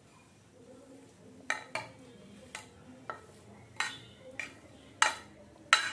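A spoon scraping and knocking against a plate and the rim of a stainless steel bowl as chopped coriander is pushed off the plate into the bowl. About eight sharp clinks, irregularly spaced, start about a second and a half in.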